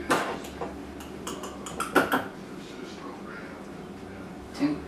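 Metal measuring spoon clinking and scraping against a small cup and a stainless steel mixing bowl as baking powder is scooped and tipped in: a few short, light clinks.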